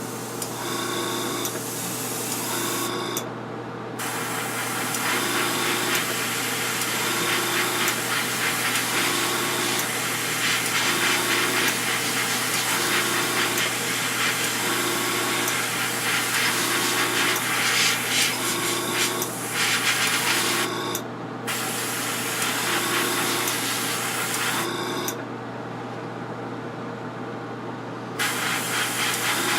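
Airbrush hissing as paint is sprayed, cutting out and starting again several times, with a longer pause near the end. Under it an air compressor hums steadily, with a soft pulse about once a second.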